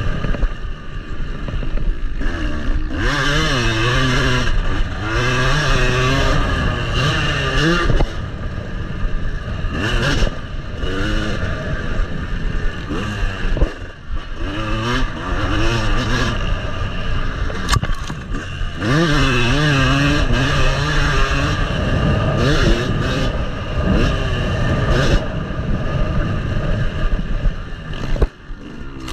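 Yamaha motocross bike's engine, recorded close up from the bike, revving up and down again and again as it is ridden hard, with short drops in level about halfway and near the end.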